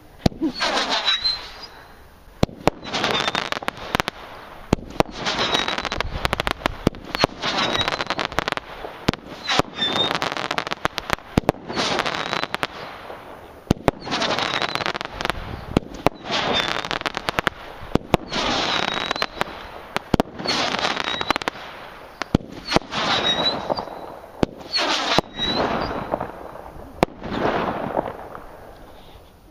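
Brothers Pyrotechnics Ultimate Battle of Colours 12-shot firework cake firing: about a dozen shots, one every two seconds or so, each a sharp bang followed by a second or so of crackling from the bursting stars.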